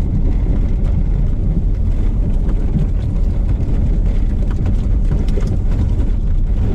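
Car driving over a rough dirt road, heard from inside the cabin: a steady low rumble of engine and tyres, with scattered small knocks and rattles from the bumps.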